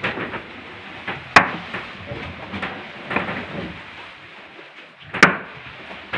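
Two sharp knocks about four seconds apart, with faint rustling and handling noise between them.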